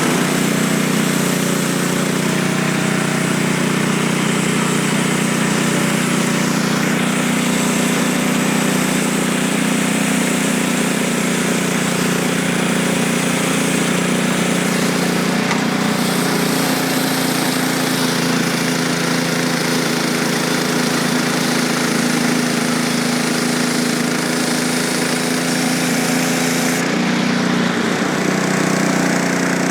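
Frontier OS23 bandsaw mill's small gas engine running steadily under load while the band blade takes a light skim cut along the log to level it. The high hiss of the cut thins out near the end.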